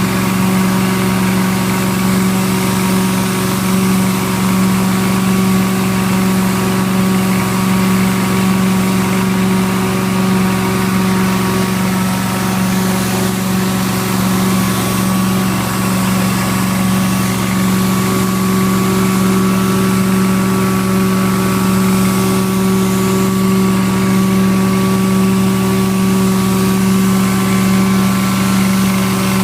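Rotary carpet extractor and its vacuum running steadily during cleaning: a constant machine hum with a hiss of rushing air.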